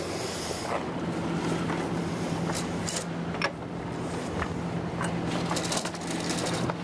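Sailboat's inboard diesel engine idling steadily in neutral, with scattered clicks and knocks, and a quick run of them about five seconds in.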